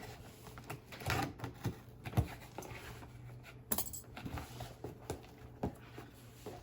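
Hands working at a heavily taped package: scattered small clicks, taps and brief rustles of tape and packaging, with one sharper rustle about halfway through.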